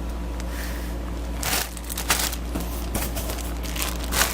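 Plastic packaging crinkling and rustling in several short bursts as parts are handled, over a steady low hum.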